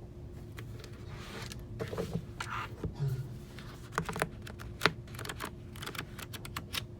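Scattered, irregular clicks and taps, keyboard-like, with short bursts of rustling between them, over a faint steady hum.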